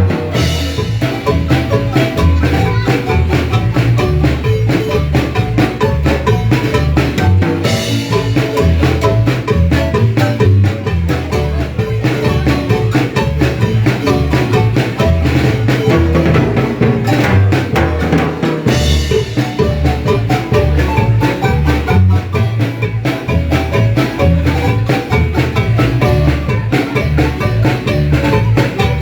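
Marimba music playing continuously, with many quick mallet notes over a steady bass beat.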